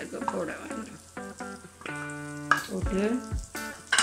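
Margarine sizzling as it melts in a nonstick pot while a wooden spatula scrapes it in and knocks against the pot twice, once about two and a half seconds in and once at the end. Background music with held instrumental notes plays throughout.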